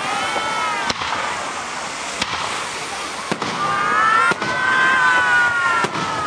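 Aerial fireworks shells bursting: about five sharp bangs, spread out over a steady hiss. High wavering tones come in near the start and again from about three and a half seconds on.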